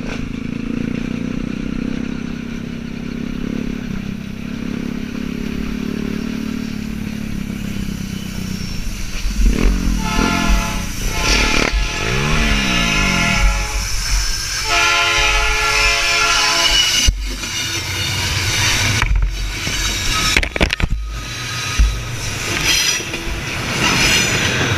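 A motorcycle engine running steadily under wind noise, then, about ten seconds in, a freight train's horn sounding in several blasts, some bending in pitch. After that come sharp knocks and thumps as the rider goes down.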